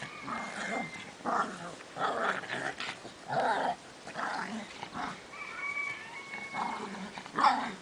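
Dog barking over and over, about ten short barks at an uneven pace.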